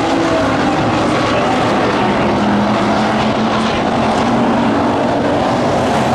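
A pack of street stock race cars running together at speed, their engines making a loud, steady drone with pitches that shift slowly as the cars go round.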